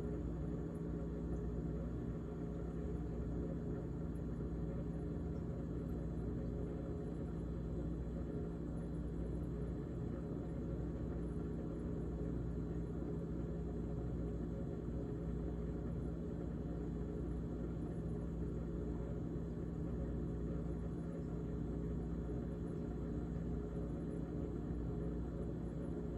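GE GTH18XCTZRBB refrigerator running with a steady humming drone and a fine, continuous rattle, which the owner ties to the evaporator fan.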